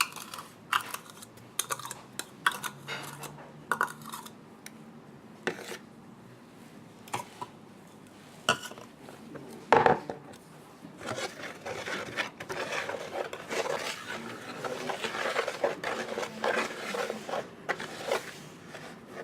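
A utensil clinking and knocking against a mixing bowl, with one loud knock about halfway. Then, from about 11 seconds in, fast continuous scraping as cake batter is mixed by hand.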